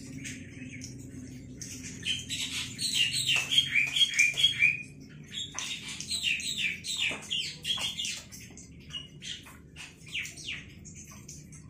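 Rapid runs of high, bird-like chirps, loudest from about two to eight seconds in, over a low steady hiss.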